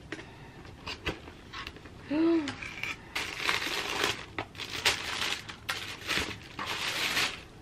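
Tissue paper crinkling and rustling as it is pulled back inside a cardboard shoe box, with a few light knocks from the box in the first seconds. A short tone rises and falls about two seconds in.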